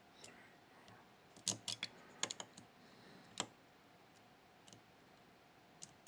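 Dimple-lock pick tapping and clicking against the pins inside a Miwa Kaba Star Orion cylinder held under tension, as the top rows are probed: a handful of sharp, faint clicks, bunched together in the middle.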